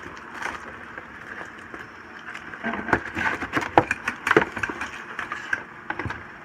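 Cardboard box inserts being handled and pulled apart, scraping and rustling, with a busy run of crackles and knocks from about three seconds in as a plastic-bagged part is lifted out.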